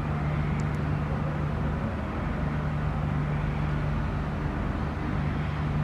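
Steady outdoor background noise: a constant low mechanical hum over a low rumble.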